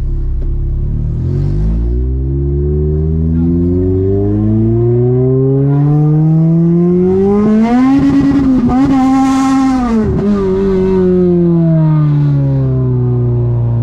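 Toyota 2ZZ-GE four-cylinder engine accelerating hard. The revs climb steadily for about seven seconds and hold high for a couple of seconds. The sound breaks off briefly about ten seconds in, then the revs fall away slowly.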